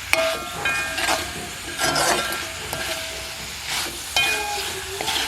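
A spoon scraping and knocking in a pan, about once a second, as pieces of cooked beef are stirred to coat them in onion masala. A light sizzle runs underneath.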